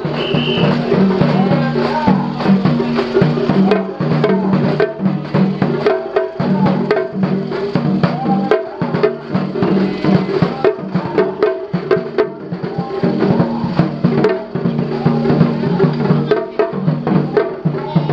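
Japanese festival drumming: taiko drums struck with sticks, mixed with sharp wooden clacks, in a fast, unbroken rhythm.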